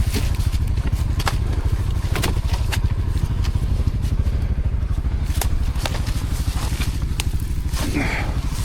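ATV engine running steadily at low revs, with scattered sharp knocks and clicks on top.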